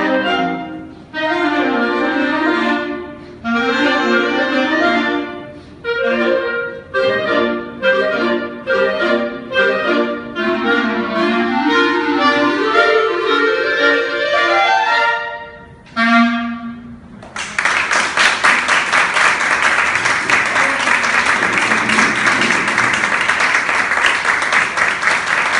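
Live instrumental music playing the last bars of a quick, rhythmic piece, ending on a short final chord about two-thirds of the way through; an audience then applauds.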